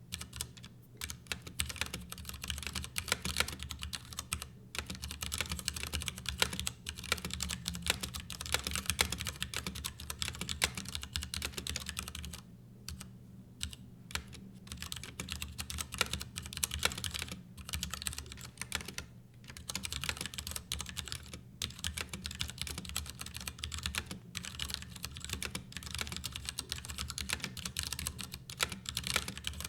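Continuous typing on a Ducky Year of the Rat mechanical keyboard: a dense run of key clicks and clacks, with a few short pauses around the middle.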